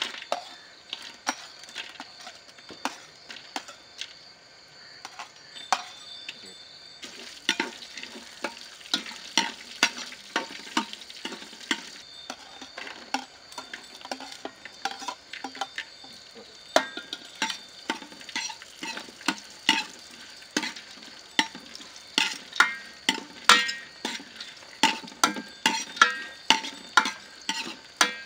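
Chopped almonds, cashews and raisins frying in hot fat in a metal pot, sizzling, while a metal spoon stirs them with frequent sharp clinks and scrapes against the pot. The clinks come thicker and louder in the second half.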